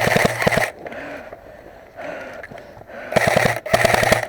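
Airsoft rifle firing full-auto bursts, a rapid even clatter of shots. A burst ends under a second in, and two more short bursts follow near the end.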